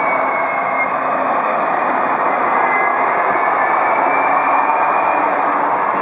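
City trams passing close on street tracks: a loud, steady rumble of steel wheels on rail with a faint electric-motor whine.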